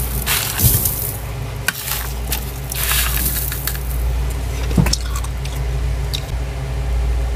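Heavy freezer frost being scraped and scooped out with a bowl: soft crunchy scraping strokes in the first half, with a single knock about five seconds in, over a steady low hum.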